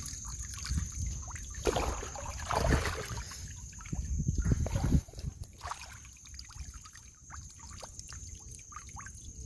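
River water trickling and splashing, busiest in the first five seconds with a low rumble underneath, then quieter with small drips and clicks. A steady high-pitched tone runs under it.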